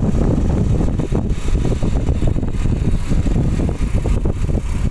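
Vehicle driving along a road: a heavy, gusting wind rumble on the microphone mixed with engine noise.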